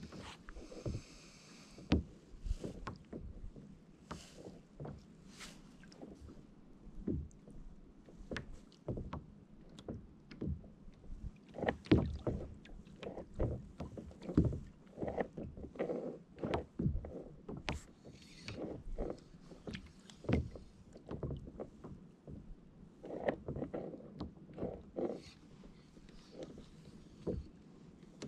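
Small water slaps and knocks against the plastic hull of a sit-on-top fishing kayak sitting on slack water, coming irregularly, at times several a second.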